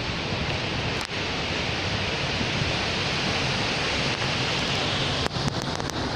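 Steady rush of wind and sea noise on a ship, with wind buffeting the microphone. The noise drops out briefly about a second in and again near the end.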